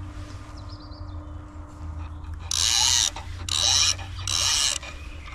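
Spinning reel on a feeder rod being cranked in three short spells of about half a second each, a whirring, ratcheting mechanical sound.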